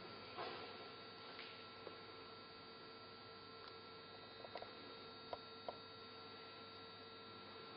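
Faint steady hum with hiss. A soft rustle comes about half a second in, and a few light ticks follow between four and six seconds in.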